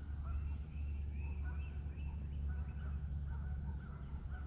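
A flock of geese honking, many short calls overlapping and repeating, the birds agitated after being scared off, over a steady low rumble.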